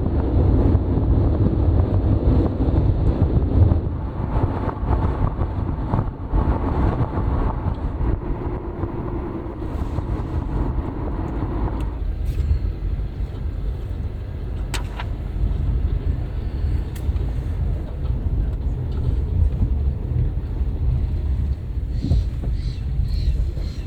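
Car driving, with a steady low rumble from the road and engine. A few faint clicks come after the midpoint.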